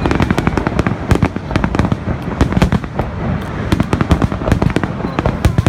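Fireworks going off in a rapid, irregular barrage of sharp cracks and bangs, several a second, over a continuous low rumble.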